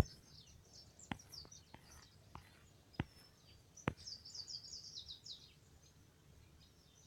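Faint birds chirping in the background, short high chirps in quick runs, with a few sharp clicks about one, three and four seconds in.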